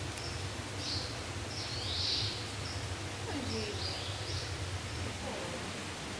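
Short, high bird-like chirps repeated many times over a steady low hum and hiss.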